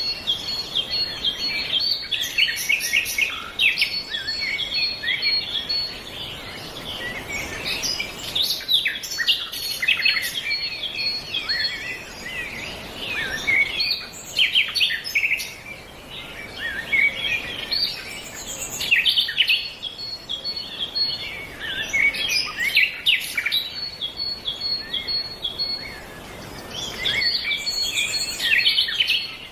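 Several wild birds chirping and singing at once, with dense overlapping chirps and trills and a high note repeated over and over.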